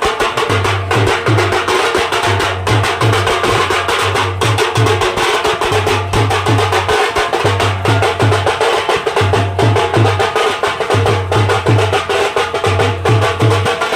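Live band music with a driving drum rhythm: a deep bass drum pattern repeating about every two seconds, busy sharp percussion strokes, and a sustained held keyboard-like note over it.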